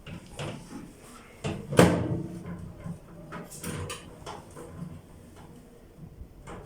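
Knocks and clatter from a microwave oven and its surroundings being handled while it is set in place, with one louder thump about two seconds in.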